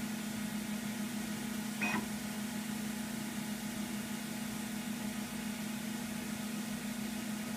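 Macintosh SE running as it boots, a steady hum from its fan and drive, with a single short click about two seconds in.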